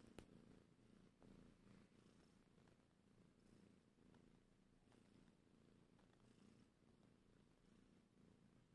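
Domestic cat purring faintly, a low, steady rumble, with one brief tick just at the start.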